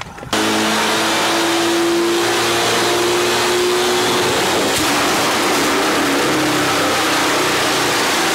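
Car engine running at high revs on a chassis dynamometer: a loud, steady drone that starts abruptly just after the beginning and holds its level throughout.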